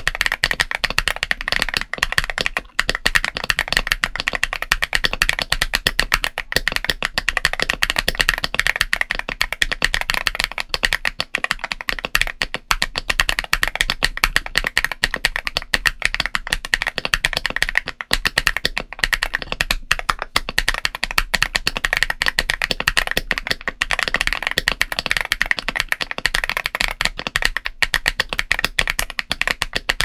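Continuous typing on a GAS67 mechanical keyboard fitted with MMD Princess Tactile 60g tactile switches and MG Dawn SA-profile ABS keycaps: a steady, dense stream of keystrokes.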